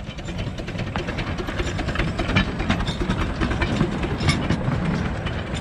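Miniature steam railway train, the locomotive Sherpa with its carriages, passing close by. Its wheels click rapidly over the rail joints over a steady low rumble, loudest in the middle as the carriages go past.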